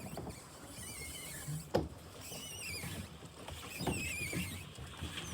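A small rowing boat moving through lake water, with a splashing stroke about every two seconds. Birds chirp faintly behind it.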